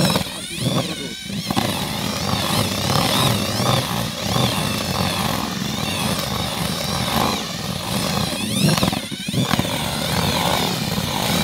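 Cordless drill spinning a paddle mixer through sifted dry earth in a plastic bucket, a steady motor whine that wavers in pitch as the trigger is eased. It slows briefly twice, near the start and about nine seconds in.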